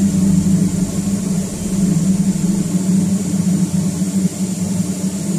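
Steady machinery hum of a ship's running plant, a constant drone with a strong low note and no rhythm.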